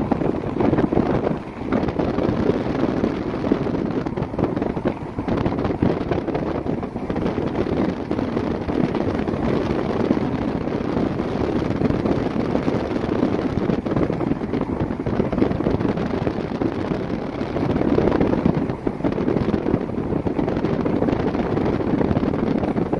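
Wind buffeting the microphone of a phone filming from a moving vehicle, mixed with the vehicle's running and road noise: a loud, steady rush.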